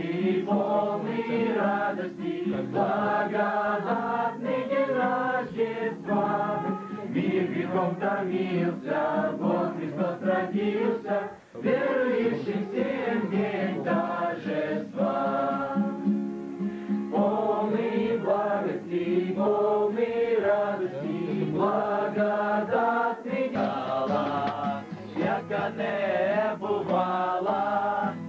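A group of young people singing a Slavic Christmas carol (koliadka) together. The singing breaks off briefly about eleven seconds in, then goes on.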